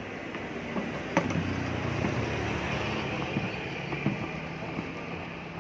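Used vacuum cleaner running on test: a steady motor hum and whine that grows louder about a second in, with a few light knocks.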